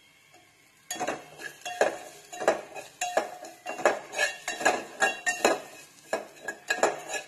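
Steel slotted spoon scraping and clinking against an aluminium pot, stirring spice powders and ginger-garlic paste in oil. The strokes start about a second in and come about twice a second.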